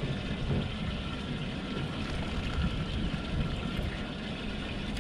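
Steady wind noise rumbling on the microphone, with a faint high steady tone in the background.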